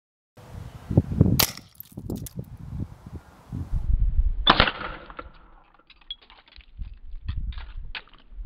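.177 air rifle firing, with the pellet punching through closed-cell PVC foam and smashing an egg: a sharp crack about a second and a half in, a second loud hit about three seconds later, then a scatter of small clicks.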